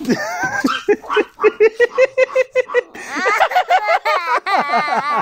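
A frightened toddler crying after a rooster jumped at him: short, rapid sobbing cries at about four or five a second, breaking into a long wail about three seconds in.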